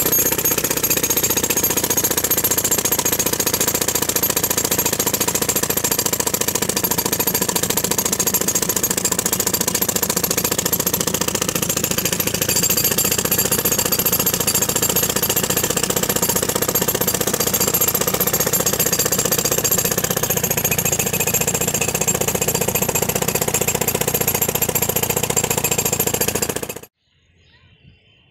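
Handheld demolition hammer running continuously, its chisel bit hammering rapidly into a reinforced-concrete bridge deck and breaking the concrete away from the steel rebar. It cuts off abruptly near the end.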